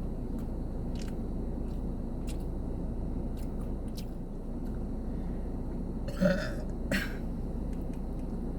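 A woman burps twice, about six and seven seconds in, the first longer and louder, over a steady low hum and faint clicks.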